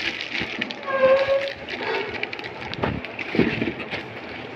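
Plastic wrapping and cardboard crinkling and rustling as a packed unit is handled and pulled from its box, with a short pitched squeak-like sound about a second in.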